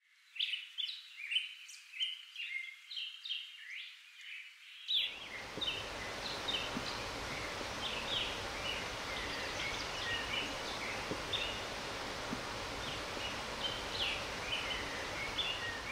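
Small songbirds singing in quick chirps and trills. About five seconds in, the steady rush of a shallow river running over stones comes in under the birdsong.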